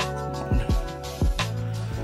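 Background music with a steady beat: kick drum hits over held bass notes, with a sharp snare-like hit about one and a half seconds in.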